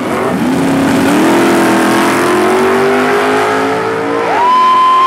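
Drag race cars accelerating hard down the strip, the engine pitch climbing slowly and steadily. About four seconds in, a higher steady tone takes over.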